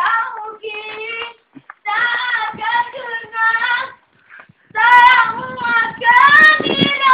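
A cat meowing over and over: a string of loud, drawn-out, high-pitched meows, with a short pause about four seconds in before they start again.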